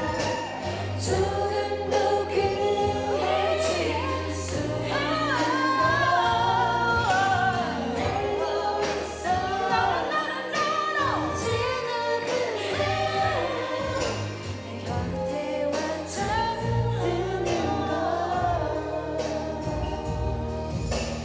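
Several women singing a pop song together into microphones over a backing track with a steady beat.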